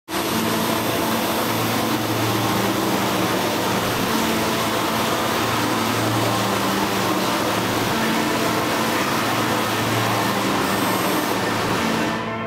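Water-curtain installation running: a steady rush of falling water over a low pump hum that swells and fades every couple of seconds. The rushing cuts off abruptly near the end.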